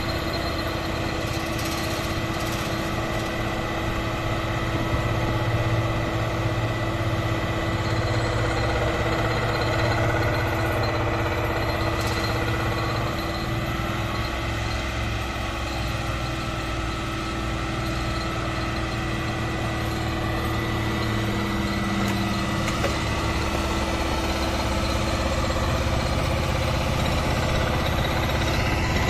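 Sheet-pile driving rig running steadily: a heavy diesel engine drone with a continuous machine hum.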